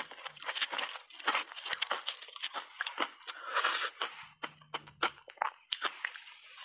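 Close-up chewing of refrozen shaved ice: dense, irregular crunching and cracking as the ice breaks between the teeth.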